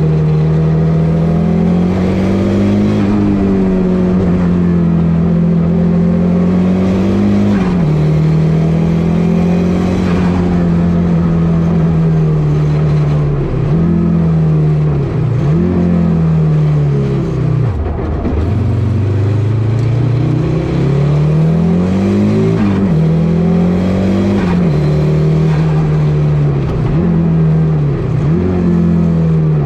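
Audi Quattro rally car's turbocharged five-cylinder engine at hard acceleration, heard from inside the cabin: the engine note holds high, drops sharply several times as the driver lifts or changes gear, and climbs straight back each time.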